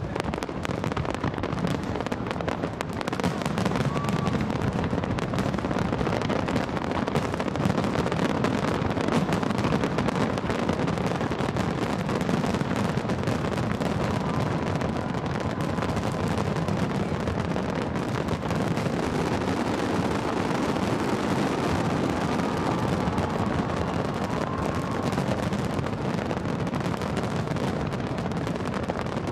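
Fireworks display: a dense, continuous barrage of shell bursts, bangs and crackling.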